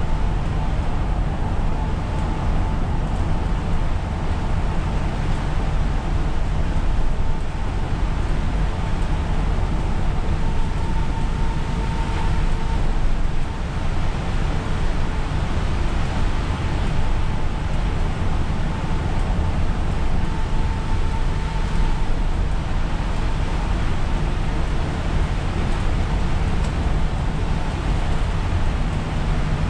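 Inside the cab of an Isuzu Erga route bus driving on a rain-soaked road: steady engine and drivetrain rumble with the hiss of tyres on wet tarmac and a faint steady whine.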